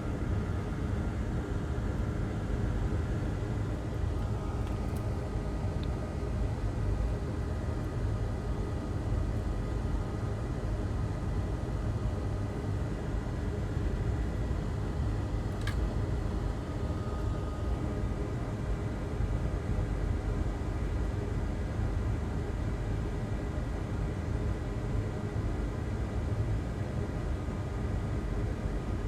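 Steady low rumble with an even hiss and a faint steady whine, unchanging throughout, with one small click about halfway through.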